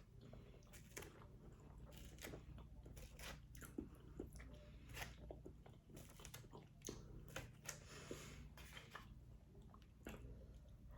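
Faint chewing and wet mouth clicks from someone eating brisket and mac and cheese: a quick, irregular run of small clicks over a steady low hum.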